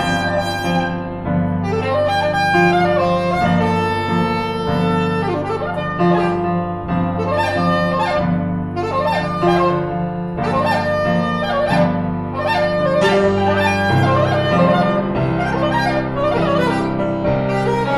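Soprano saxophone and piano playing jazz: the sax spins a winding, bending melodic line over sustained piano chords and low notes.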